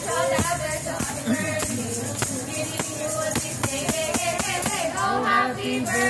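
A group of restaurant servers singing a birthday song together, clapping and shaking hand-held plastic noisemakers to a steady beat of about two to three strikes a second.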